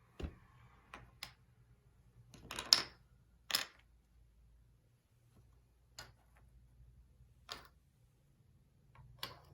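Paper hexagon cutouts being handled and arranged on a table: scattered light taps and paper rustles at irregular intervals, the loudest a short rustle a little over two and a half seconds in.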